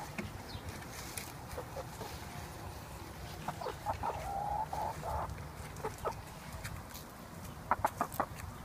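Hens clucking, with a drawn-out cluck about halfway through. Near the end comes a quick run of sharp pecks as a hen pecks cracked corn from a hand.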